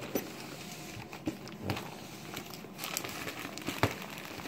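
Crinkling and rustling of candy wrappers as a fabric lunch bag packed with Halloween candy is handled and opened, with a few short sharp clicks.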